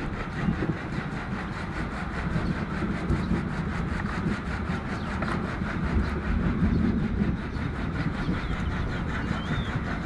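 Water buffaloes eating chopped green fodder from a trough: a steady, dense crunching and rustling made of many small clicks.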